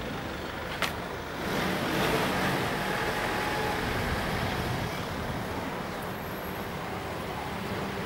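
Street traffic noise: a steady hum of road vehicles, swelling about one and a half seconds in as a vehicle goes by, with a single sharp click just under a second in.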